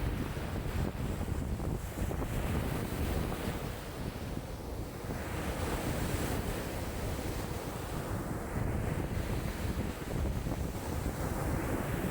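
Choppy lake waves washing in a strong, gusty wind, with wind buffeting the microphone as a low rumble. The wash swells and eases over a few seconds.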